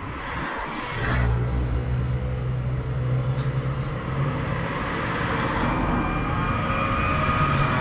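Road traffic picked up outside a moving car: a steady low rumble of engines and tyres that grows louder about a second in, with a higher whine joining near the end.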